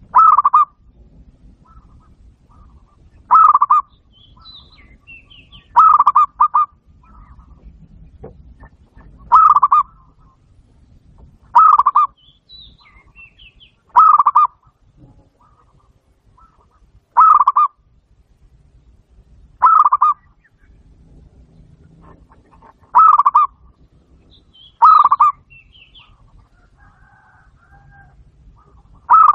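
Zebra dove (perkutut) cooing: about ten short bursts of rapid coos, each about half a second long, repeated every two to three seconds.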